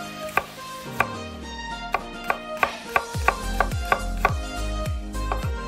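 Chef's knife slicing peeled garlic cloves on a wooden cutting board: sharp knocks of the blade on the board that come faster after the first couple of seconds, about three a second. Background music with strings plays underneath.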